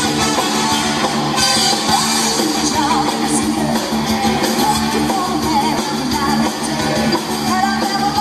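A live soul and funk party band playing a song, with a singer's voice over guitar and the full band.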